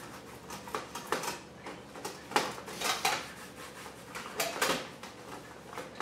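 Cloth wiping and scrubbing the metal parts of a Behmor 1600 Plus coffee roaster: irregular rubbing strokes with light clatter as the parts are handled, loudest a few times in the middle.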